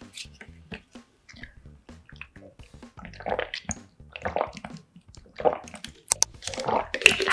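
A person drinking water from a plastic bottle: light plastic clicks and crinkles as the bottle is handled, then four gulping swallows about a second apart.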